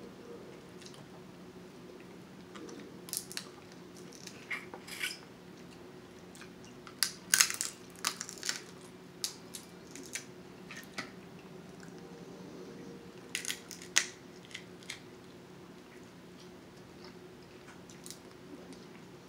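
Snow crab leg shells cracking and crunching as they are broken open by hand, in irregular sharp snaps that come thickest about seven seconds in and again near fourteen seconds. A steady low hum runs underneath.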